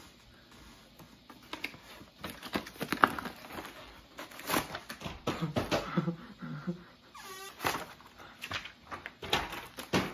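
Paper and plastic packaging rustling and crinkling in irregular bursts as a balloon-animal kit is unwrapped by hand.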